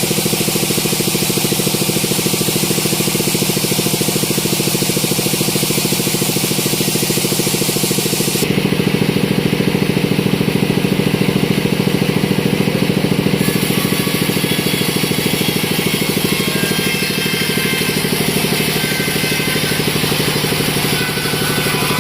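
Sawmill engine running steadily at a constant speed, its sound shifting abruptly about eight seconds in and again about five seconds later.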